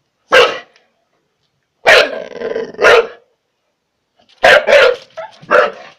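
Pit bull barking in loud, separate barks: one bark, then two about a second apart, then three in quick succession near the end.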